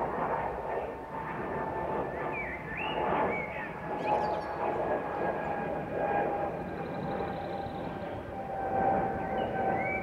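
Jet airliner passing overhead: a broad engine rumble with a steady whine that slides slowly down in pitch as it goes by. Small birds chirp briefly a few times over it.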